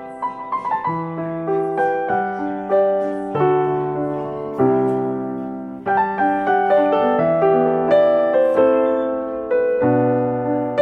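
Background piano music: a gentle melody over chords, each note ringing and fading.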